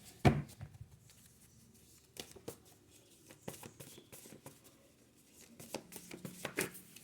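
Oracle cards being handled and shuffled: one sharp tap about a third of a second in, then scattered light flicks and clicks of cards.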